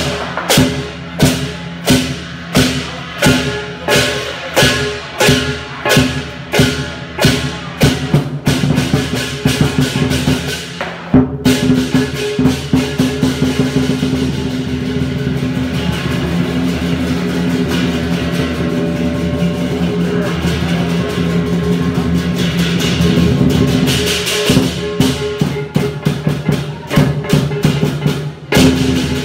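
Chinese lion dance percussion of drum, cymbals and gong playing: steady beats about two a second, quickening around eight seconds in into a fast continuous roll, then back to steady beats near the end, with cymbals and gong ringing throughout.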